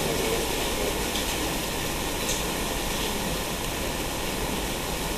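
Steady hiss of room noise, with a few faint clicks.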